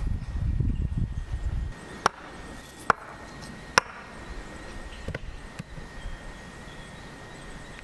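Low rumbling for the first second and a half, then three sharp knocks about a second apart, with two fainter ones after: a hammer driving wooden marker pegs into the ground.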